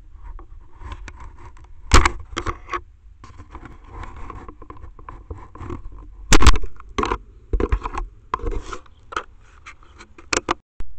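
Handling noise on a trail camera's built-in microphone: irregular scraping and rubbing, broken by many sharp knocks, the loudest about two seconds in and again about six seconds in.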